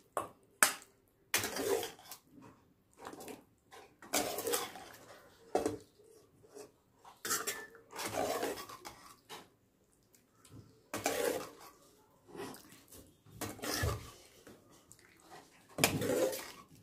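Steel ladle scraping and clinking against a steel kadai and a steel serving bowl as cooked potato-cauliflower curry is scooped out, in a dozen or so short irregular strokes with brief pauses between them.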